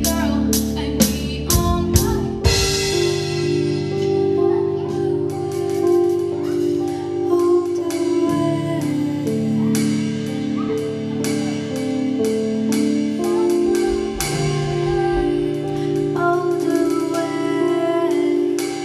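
Live band playing: a run of drum hits ending in a cymbal crash about two and a half seconds in, then held keyboard chords over bass and lighter drum strokes, with a female voice singing.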